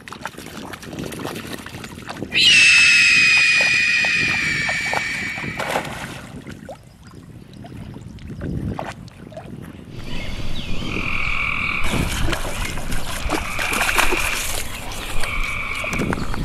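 Water splashing and dripping as a dog wades in a shallow river. About two seconds in, a loud long tone starts suddenly and fades over about three seconds as its pitch slowly falls. From about ten seconds in, a steady two-pitched calling with clicks among it runs on.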